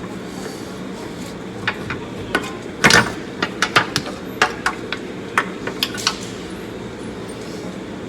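Hand tools and metal parts knocking and clinking during a steering rack replacement: about a dozen sharp, irregular strikes over a few seconds, the loudest about three seconds in, over a steady background hum.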